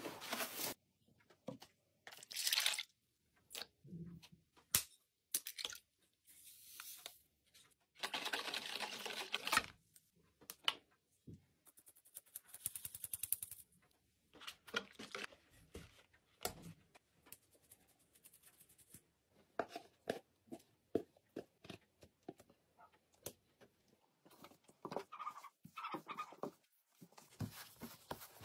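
Hand-made pie dough being prepared: intermittent rustles and taps, a steady hiss of about two seconds, a quick run of fine clicks, and hands kneading the dough near the end.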